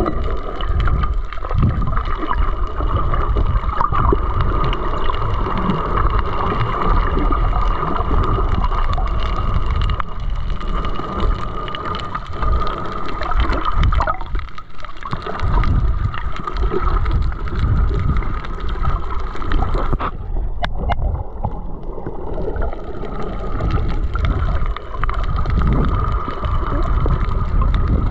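Underwater ambience: a steady low rumbling water noise with a high whine held at one pitch running through it, which drops out for about two seconds roughly twenty seconds in.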